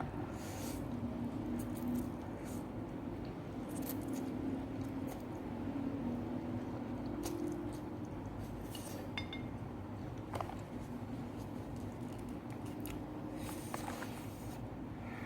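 A person eating noodles close to the microphone: chewing, and a few short slurps, with light clicks of utensils against a bowl, over a steady low hum.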